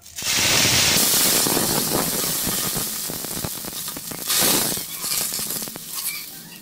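Water splashed onto a hot, oiled iron tawa, sizzling and hissing into steam. A loud burst comes at once and eases off, and a second splash flares up about four and a half seconds in.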